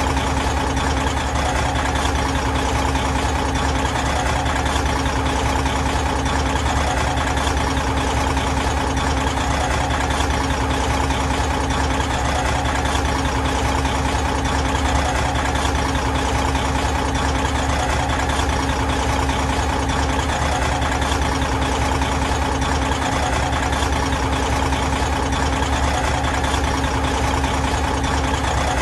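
Big truck diesel engine idling steadily, with a constant low rumble that does not change in speed or level.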